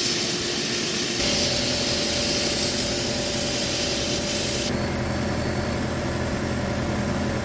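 Electric power tool running steadily while cleaning subframe bolts and hardware. Its tone changes abruptly twice.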